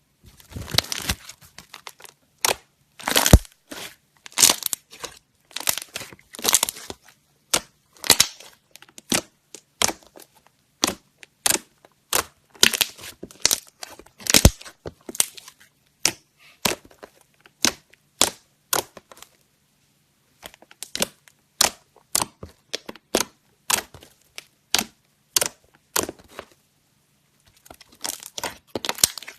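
A run of crisp, irregular crunches and crackles, a few a second with brief pauses, like something brittle being crushed or cut close to the microphone.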